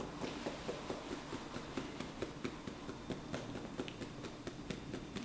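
Fingertips tapping lightly on the top and then the sides of a person's head, a quick run of soft taps several a second: EFT acupressure-point tapping.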